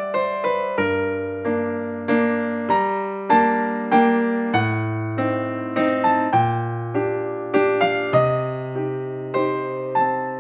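Background music: a gentle electric piano tune, notes struck at an even pace over a slow-changing bass line.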